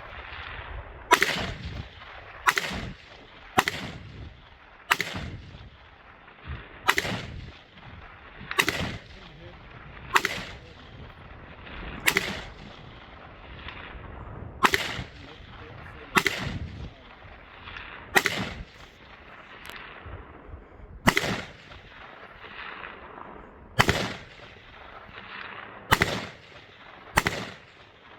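Single gunshots fired at a slow, aimed pace: about fifteen shots, one every one to three seconds. Each crack is followed by a short echo that trails off.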